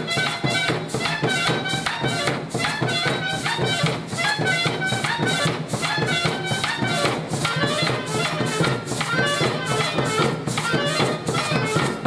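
Recorded dance music played over a loudspeaker for a costumed children's dance, with a steady percussion beat under a melody line.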